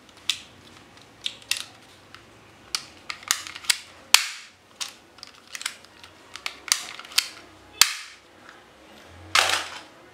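Toy guns clicking and snapping: a run of sharp, irregularly spaced clicks, with a longer hissing burst near the end.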